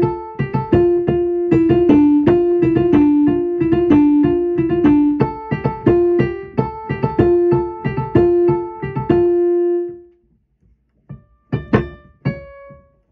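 Electric keyboard playing a quick tune of struck, decaying notes that keeps returning to two neighbouring notes in the middle register. The tune stops about ten seconds in, and two or three single notes follow near the end.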